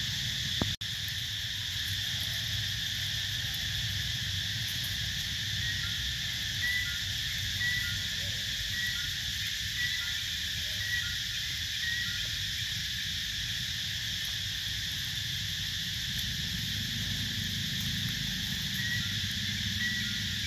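Steady high-pitched insect chorus of a forest, with a run of short high notes about once a second through the middle and again near the end. There is a single sharp knock just under a second in.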